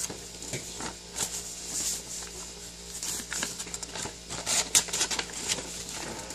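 Packaging rustling and crinkling as it is handled, with irregular small clicks and taps.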